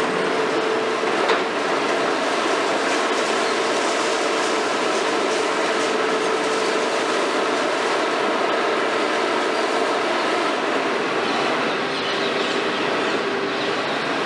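High-reach demolition excavator, a KMC 400 built on a Hitachi 350, running steadily as its long boom lifts the demolition attachment: a dense mechanical din from engine and hydraulics, with a steady whine that drops away past the middle and comes back near the end.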